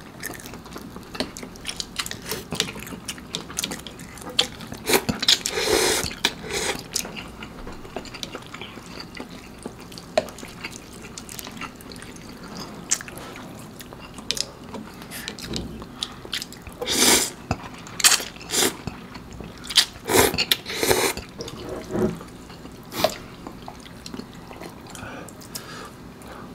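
Close-up wet chewing and mouth sounds of people eating curry instant noodles, a steady run of small wet clicks with several louder wet mouth noises.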